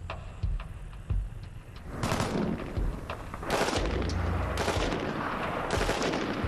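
M14 rifle firing 7.62 mm rounds on full automatic: a couple of single cracks, then from about two seconds in, four short bursts of rapid fire, roughly one a second.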